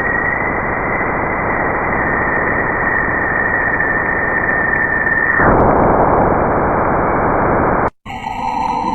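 A 'planet sound' clip made from space recordings: a steady static-like hiss with a thin, high, steady whistle over it. The whistle stops about five and a half seconds in while the hiss goes on; near the end the hiss breaks off abruptly and a different, eerier sound with drawn-out tones begins.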